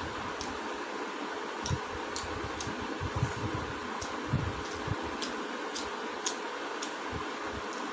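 A person eating by hand, chewing a mouthful of rice and fish curry, with irregular sharp wet clicks and soft low bumps, over a steady background hiss.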